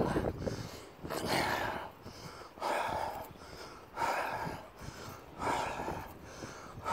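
A man breathing audibly through his open mouth as he walks, about five breaths, one roughly every one and a half seconds.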